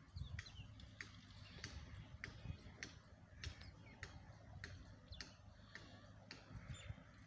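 Faint outdoor ambience: sharp high clicks at uneven intervals, roughly one or two a second, over a low rumble.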